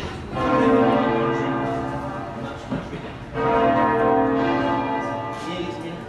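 York Minster's heavy ring of twelve church bells (cast in 1925, 59 cwt tenor) being rung in changes, the bells striking one after another in two loud waves about three seconds apart, each fading as it rings on.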